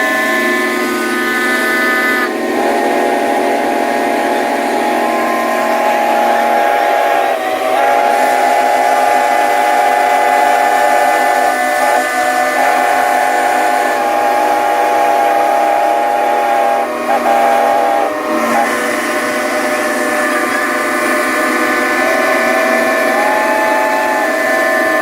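Many steam whistles on steam traction engines and stationary steam engines blowing at once: a loud, continuous chorus of overlapping steady pitches. The mix shifts several times as single whistles stop and others join in.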